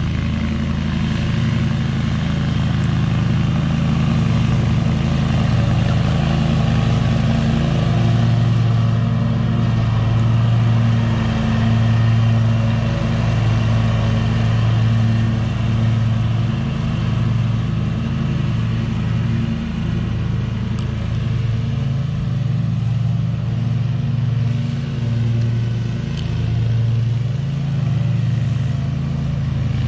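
Stand-on zero-turn mower's engine running steadily under load while cutting grass. It grows louder as the mower passes close by around the middle, then eases off as the mower moves away.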